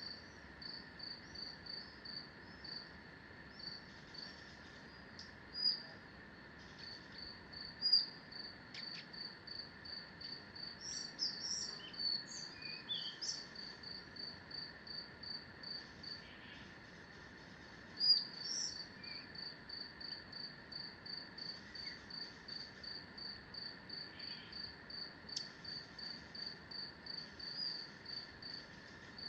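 An insect, likely a cricket, chirping steadily at about two high chirps a second over a faint steady drone. Forest birds call now and then over it, most loudly about 8 and 18 seconds in.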